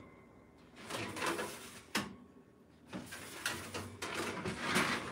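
Oven door and rack being handled while cookies are checked mid-bake: scraping and shuffling, with a sharp knock about two seconds in.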